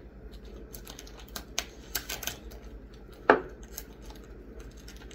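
Clear plastic wrap crinkling as it is handled and pulled at on a boxed cheesecake, in scattered small crackles with one louder, sharper sound a little past halfway.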